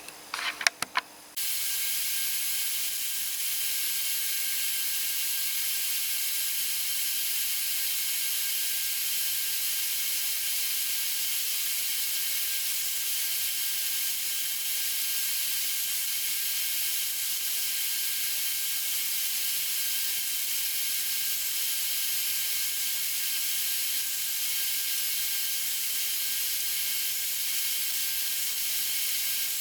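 A couple of light clicks, then a steady airy hiss with faint high whining tones that starts abruptly just over a second in and holds unchanged: a bandsaw running.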